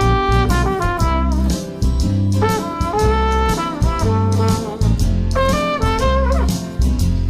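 School brass band playing a tune: horns hold notes that change pitch every half second or so, over steady drum beats.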